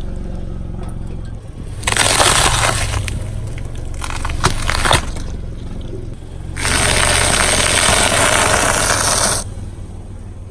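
A car tyre rolls over and crushes objects over a low engine hum. Loud crackling comes about two seconds in and a few sharp cracks around the five-second mark, then a long, steady crackling hiss lasts about three seconds before stopping suddenly.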